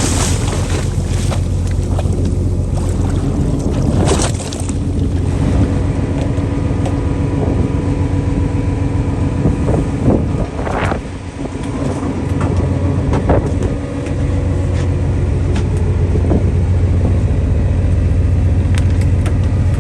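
Fishing boat's engine running steadily with a low, even hum, with wind and sea noise. A few short, louder noises come through around the middle.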